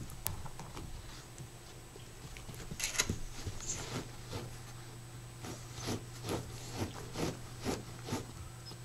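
A Jack Russell terrier scrabbling with its paws under a wooden cabinet, scraping and rubbing against carpet and wood as it tries to reach a stuck ball. A flurry of scrapes comes about three seconds in, then a steady run of strokes about two a second in the second half.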